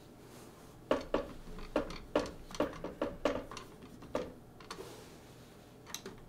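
Hard plastic parts of a Caliburn spring blaster clicking and knocking against each other, about ten sharp clacks in quick irregular succession, as the plunger rod assembly is handled and fitted into the plunger tube. A few fainter clicks follow near the end.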